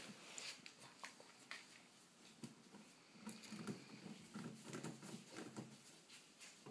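Faint scuffling, pattering and light knocks of chinchillas moving about their wire cage, on its platform and in the shavings bedding.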